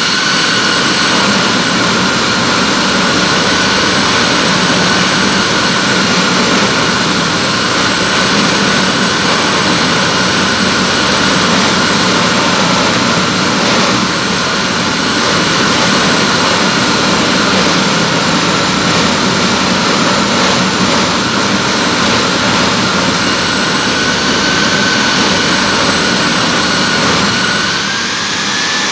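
Electric core drill cutting concrete, its motor running steadily under load with a loud, high whine over a rough grinding noise. The pitch wavers slightly and rises briefly near the end.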